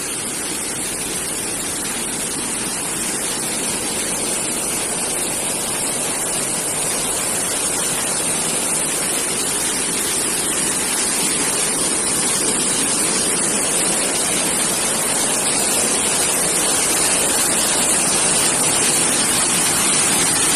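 Waterfall, a steady rush of falling water that grows gradually louder.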